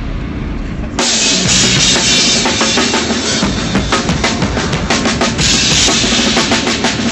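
Drum kit played loudly at a band sound check. About a second in, it breaks into fast hits with bright crashing cymbals over the kick and snare.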